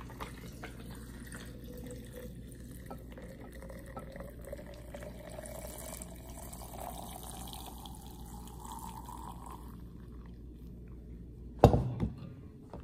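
Blended watermelon juice poured from a glass measuring jug into a glass pitcher of ice, the pouring sound rising steadily in pitch as the pitcher fills, then stopping about ten seconds in. Near the end comes a single sharp knock, the loudest sound.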